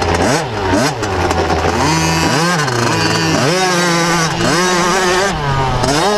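Motocross bike engine heard from on board, revving up and dropping back in quick rises of pitch, with steadier stretches of running in between.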